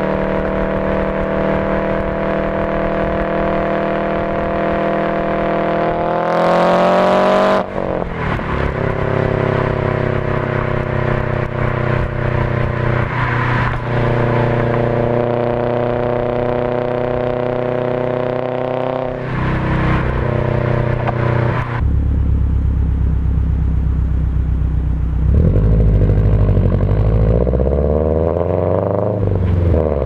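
Turbocharged 2004 Subaru Forester XT engine with a Blouch 18G-XT turbo, run through a 5-speed manual. It cruises steadily, then revs up in a pull about six seconds in with a hiss over the top, and cuts off sharply at the shift. It runs on at steady revs with a few step changes, and climbs again near the end.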